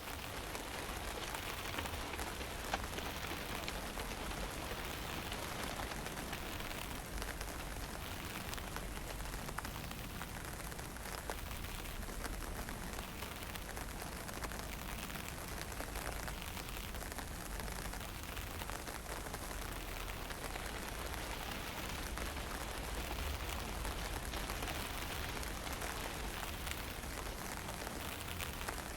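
Fine misty drizzle falling steadily, with a constant low rumble of wind underneath.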